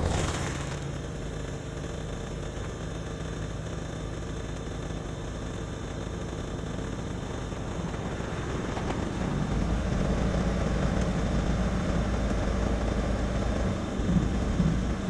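Car engine idling close by as the car waits at the crossing, its low hum growing louder from about nine seconds in.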